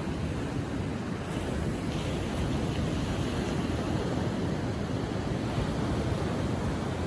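Ocean surf at low tide: waves rolling in and washing up the beach as a steady, even rushing sound.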